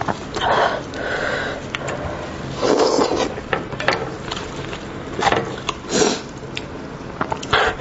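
Wet squelching and tearing as a cooked lamb's head is pulled apart by hands in plastic gloves. It comes in irregular short bursts with a few small clicks.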